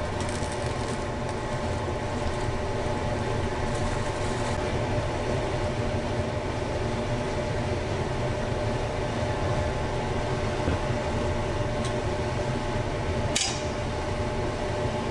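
Steady hum of a fan with a few steady tones in it, and one sharp tap about thirteen seconds in.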